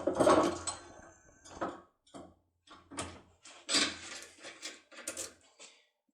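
A hand-held metal locksmith pick tool and its parts being handled, with a run of sharp clicks and clatters, loudest in the first second, another cluster about three to five seconds in, then stopping.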